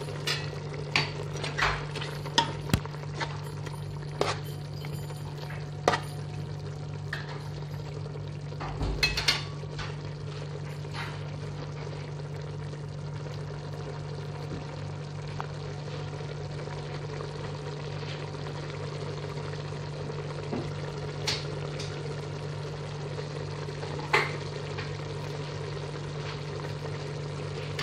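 Fish in tomato sauce with carrots bubbling and sizzling in a cooking pot, with scattered sharp clicks and knocks of a utensil on the pot, most of them in the first ten seconds, over a steady low hum.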